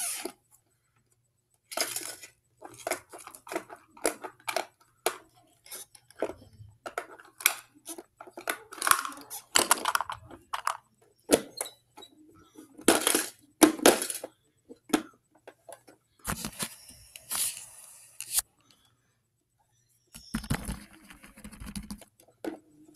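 Plastic toy garbage truck and small plastic toy bins handled by hand: irregular clicks, knocks and rattles as the truck's lifting arm picks up and tips a bin, with a burst of rustling and a low rumble near the end.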